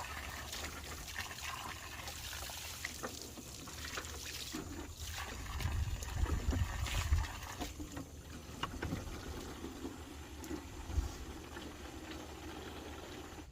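Water from a garden hose running and splashing, with scattered knocks and a louder low rumble about midway.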